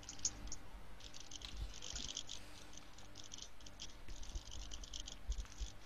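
Faint room tone over a video-call line, with light, irregular scratchy crackles throughout and a low hum.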